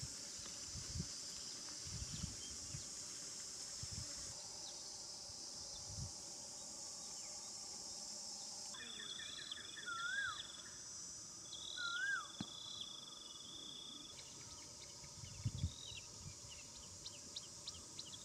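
Countryside ambience: a steady high insect drone, strongest in the first half, then a bird calls with slurred whistles and a held high trill about ten and twelve seconds in. A few low thumps, and fast ticking near the end.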